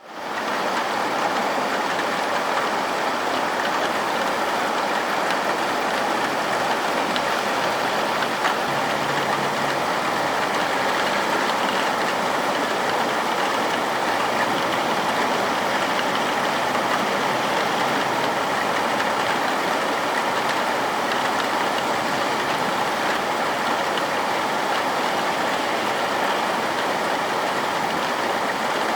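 Heavy rain falling in a steady, dense hiss, fading in at the start.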